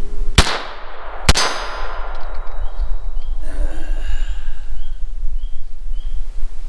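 Two shots from a Llama XV Especial .22 LR pistol, about a second apart, each a sharp crack with a short ringing tail.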